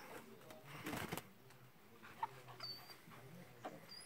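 Dog whimpering faintly a few times, with a brief rustling scuffle about a second in.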